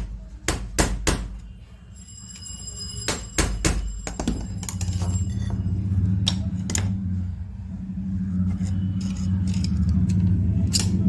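Hammer blows on metal, about three quick strikes and then a pair a couple of seconds later, with a high metallic ringing after them; these are attempts to knock a jammed bit out of a rotary hammer drill. From about four seconds in, a low rumbling hum builds and grows louder.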